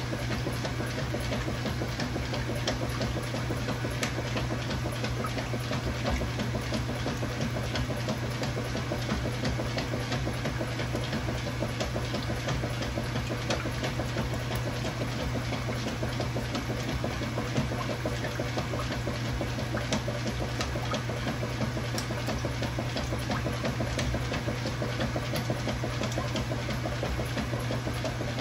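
Kenmore Ultra Fabric Care top-load washing machine with a KitchenAid Dual Action Agitator running: a steady motor hum under continuous churning and splashing of water, unbroken throughout.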